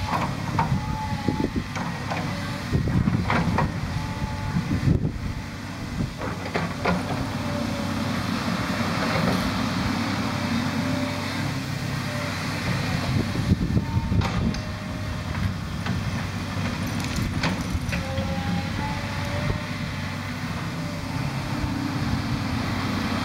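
Volvo EC210 tracked excavator's diesel engine running under load as the boom and bucket work. Scattered sharp knocks and a few short squeaks sound over the engine.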